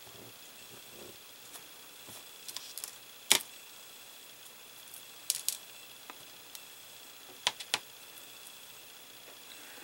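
Scattered sharp clicks and taps of small die-cast metal model parts and a screwdriver being handled, the loudest click a little over three seconds in, with pairs of lighter clicks later on.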